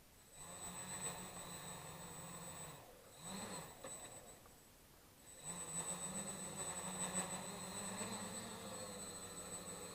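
Quadcopter's electric motors and propellers spinning up in spurts, with a high thin whine: a run of about two and a half seconds, a short blip, then a steady run from about halfway on as the throttle is opened for takeoff.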